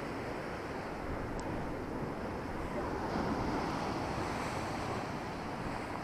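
Storm surf breaking and washing against a stone sea wall, a steady rushing that swells a little about halfway through, with wind buffeting the microphone.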